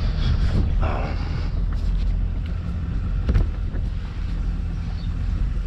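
Small motorboat's petrol engine running at low speed, a steady low rumble, with wind on the microphone. One short knock about three and a half seconds in.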